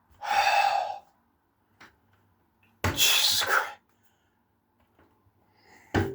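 Two loud, breathy bursts about two and a half seconds apart, like heavy sighs or gasps, then a short click near the end.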